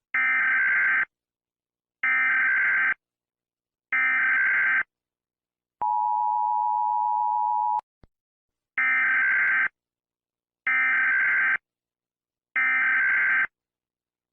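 Emergency Alert System tones: three one-second bursts of raspy digital data (the SAME header) a second apart, then the steady two-tone attention signal for about two seconds, a brief click, and three more data bursts.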